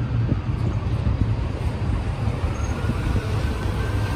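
Engine of a Dublin Bus Volvo B9TL double-decker running with a steady low rumble as the bus rolls slowly past at close range, with a faint high whine in the second half.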